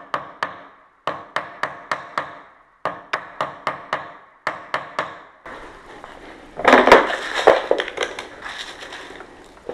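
Quick light hammer taps, about four a second in several short runs, on the metal case of a Lockwood 001 deadlock, knocking it down into position on the door. About five and a half seconds in the tapping stops, and hands rummage through loose screws and parts on plastic wrapping, a louder rustling and clattering.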